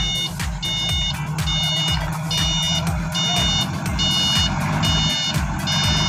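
Forklift backup alarm beeping at a steady pace of about one short high beep a second. Under it is the forklift's engine running.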